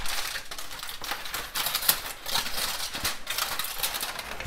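Aluminium foil crinkling as it is peeled back from a baking sheet, a quick irregular run of crackles.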